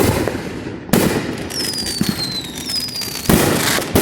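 Aerial fireworks shells bursting: sharp bangs at the start, about a second in and again a little after three seconds, each trailing off in a reverberating rumble, with a high whistle falling slowly in pitch between them.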